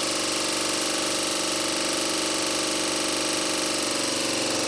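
Candy washing machine spinning at speed with a 24mm wrench rattling inside the drum: a loud, steady, fast hammering rattle.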